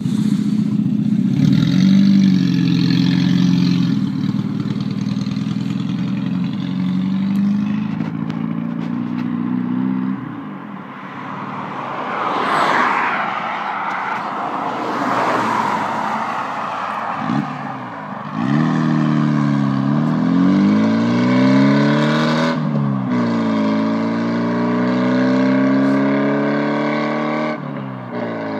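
Classic Mini MPi's 1.3-litre A-series four-cylinder engine running with no exhaust fitted: a steady engine note at first, then, after a rush of road noise midway, the engine pulls away with its pitch rising in sweeps, broken twice by gear changes.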